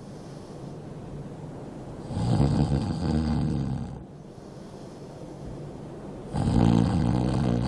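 A man snoring heavily in his sleep. There are two long, low snores about four seconds apart, the second starting near the end, with quieter breathing between them.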